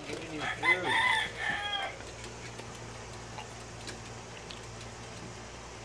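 A rooster crowing once: a string of rising-and-falling notes lasting about two seconds, loudest in the middle and trailing off at the end.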